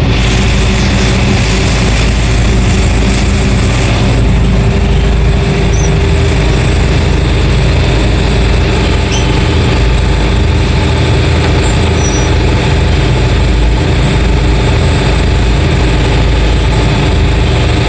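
Shirasu fishing boat's engine running steadily under way, with the rush of its wake.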